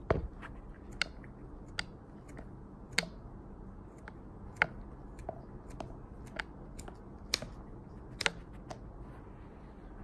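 Scissors snipping a hard dog treat into small pieces: sharp separate snips at uneven intervals, the loudest right at the start.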